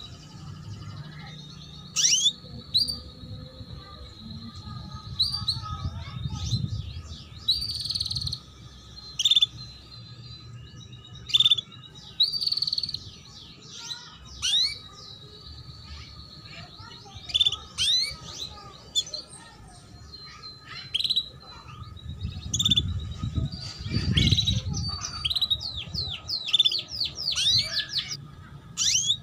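Female domestic canary calling 'cuit cuit': short, sharp chirps repeated in irregular bursts. This is the female call played to stir young male canaries into song and breeding condition.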